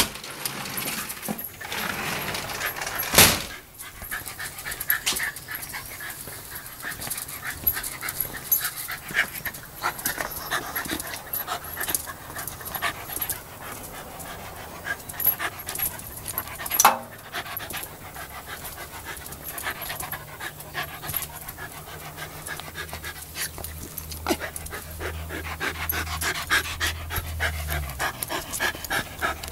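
Australian Terrier panting, with scattered light clicks and taps throughout. A loud knock comes about three seconds in and another around the middle. A low hum joins for the last third and stops shortly before the end.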